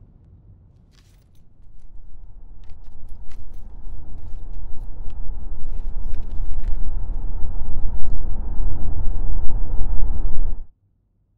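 Car driving at motorway speed heard from inside the cabin: a low road-and-engine rumble that builds steadily from about a second and a half in. Scattered sharp ticks sit over it, and it cuts off suddenly near the end.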